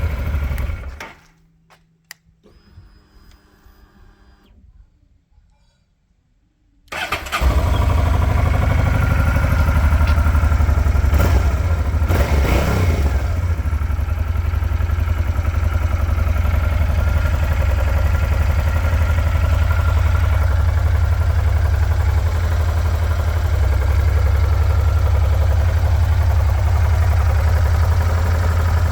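Stock 2008 Honda Transalp 700 V-twin motorcycle engine on its standard exhaust, switched off about a second in. After a few quiet seconds it is started again at about seven seconds and settles into a steady idle.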